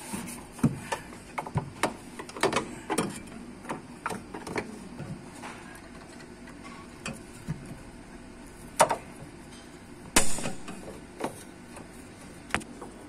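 Bolts being tightened with hand tools under a car: a run of quick ratchet clicks in the first five seconds, then scattered knocks, the loudest about nine and ten seconds in.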